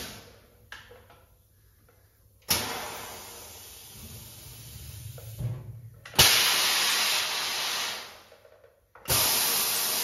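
EMMEGI ITACA hydro-pneumatic corner crimper working through its cycle: three sudden bursts of compressed-air hiss as its cylinders move, about two and a half, six and nine seconds in. The middle burst is the loudest and lasts about two seconds before fading, and a low rumble comes between the first two.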